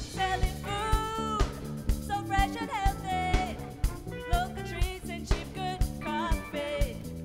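Pop song with a sung melody over a steady drum beat of about two beats a second.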